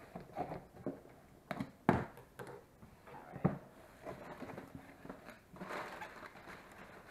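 Cardboard shipping box being opened by hand: a few sharp knocks and scrapes from the flaps, then crumpled packing paper rustling near the end.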